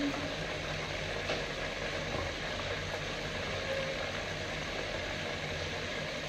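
Steady low mechanical hum with background hiss, with a faint click about a second in.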